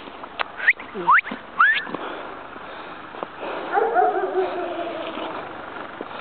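Dog giving three short rising yelps, then one long wavering whine that slowly falls in pitch.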